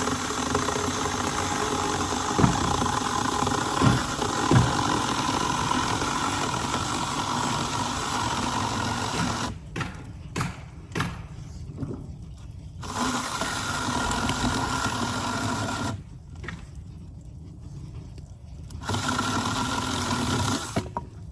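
Cordless 4-inch mini chainsaw running and cutting through wooden deck boards, with a few knocks in the first five seconds. From about halfway through it runs in short bursts of a few seconds, with pauses of about three seconds between them.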